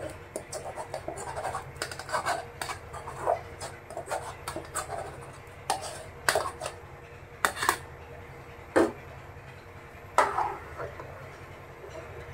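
A metal spoon scraping and knocking against a metal bowl and a large aluminium pot as boiled rice is tipped into simmering milk and stirred, with a few sharper clanks in the middle.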